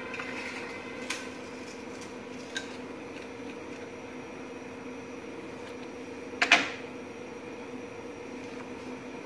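Steady low hum with a few light clicks and one louder clink about six and a half seconds in, from a glass serving bowl being handled while chocolate-dipped biscuits are laid in it.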